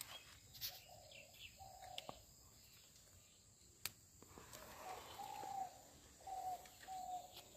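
Faint bird calling repeatedly, short, slightly falling notes at one pitch roughly once a second, with a pause in the middle. A few faint clicks of leaves and twigs being handled.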